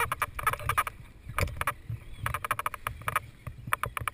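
Bursts of sharp clicks and rustling from the paraglider's riser and brake-toggle hardware being handled, over a low, uneven wind rumble. The clicks come in four or five quick clusters.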